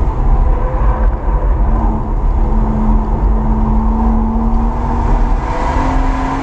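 BMW M140i's tuned turbocharged straight-six, with a BCS valved exhaust, pulling under acceleration, heard from inside the cabin with heavy road and tyre rumble; the engine note rises slowly and steadily.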